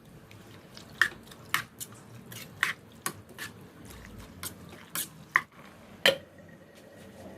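Food being handled by hand: about ten irregular sharp clicks and taps with soft wet squishing, the loudest tap near the end.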